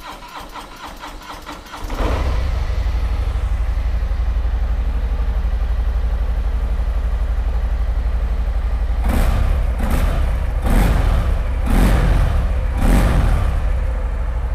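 A Harley-Davidson Milwaukee-Eight 114 V-twin (1,868 cc) on a 2019 Fat Boy: the starter cranks for about two seconds, the engine catches and settles into a loud, steady idle, then takes five quick throttle blips between about nine and thirteen seconds in before dropping back to idle.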